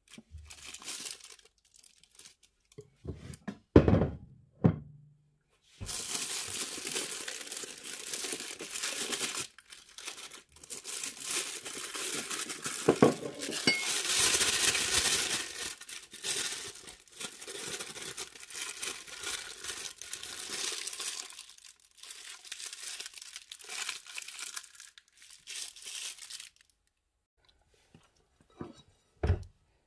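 Plastic piping bag full of buttercream crinkling and rustling at length as it is handled and twisted, with a few short knocks about four seconds in and another near the end.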